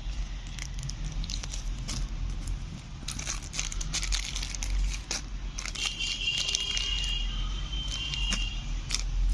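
Small metal and plastic puncture-repair tools and their packaging being handled: scattered clicks, clinks and crinkling rustles, with a thin high tone between about six and eight seconds in and a steady low hum underneath.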